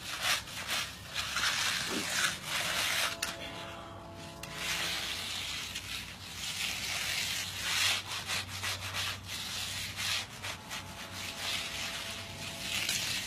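Diamond hand float rubbing back and forth over concrete, a gritty scraping in repeated strokes that eases off briefly a few seconds in. The float is grinding the surface down and working the paste into the holes.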